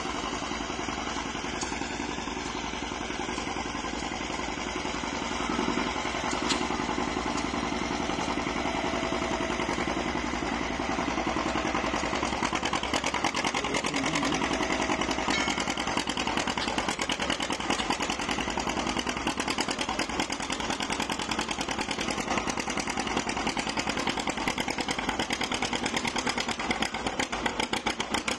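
1948 John Deere B's two-cylinder engine running hard under load as it pulls, its exhaust beat getting louder about twelve seconds in.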